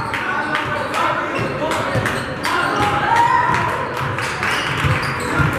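Indistinct voices of players and spectators in a gymnasium during a basketball game, with a basketball bouncing and thudding on the court.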